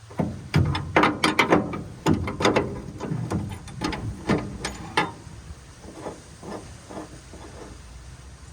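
A wrench turning the nut on a Gleaner L2 combine's cylinder adjustment rod: a run of irregular metal clicks, dense for about five seconds, then thinning out.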